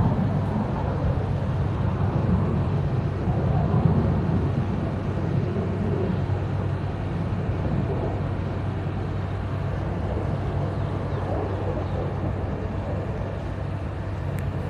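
A steady low engine drone with a constant hum, fading slightly over the stretch.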